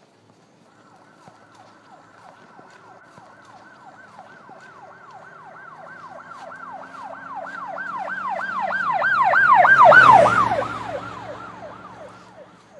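An emergency vehicle's siren going by: quick, repeated downward wails, about three a second. They grow louder to a peak about ten seconds in, then drop in pitch and fade as the vehicle passes, with its engine heard briefly at the closest point.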